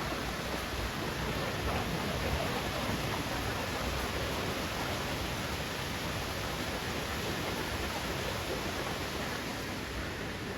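Steady rushing water of a waterfall pouring into its pool, an even hiss without breaks.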